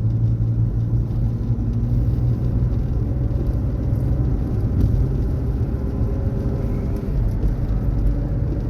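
Car driving, heard from inside the cabin: a steady low engine and road hum.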